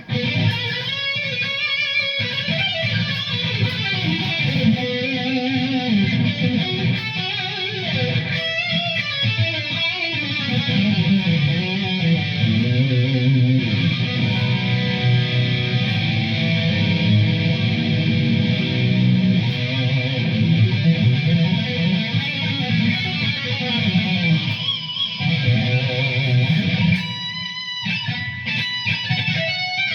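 Ibanez Iron Label ICTB721 Iceman seven-string electric guitar with DiMarzio D Activator pickups, played continuously through an amp in improvised lines. The sound changes near the end.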